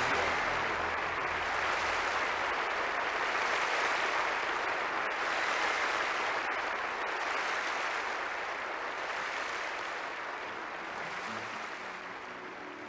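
Large audience applauding, a dense, steady clapping that slowly dies down toward the end.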